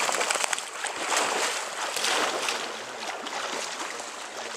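Water sloshing and splashing as a person wades through knee-to-thigh-deep water, a steady churning that eases off near the end.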